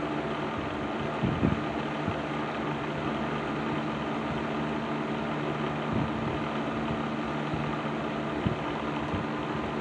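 Patton 12-inch box fan with its Fasco motor running steadily after servicing: an even rush of air over a steady motor hum, running smoothly with no problem.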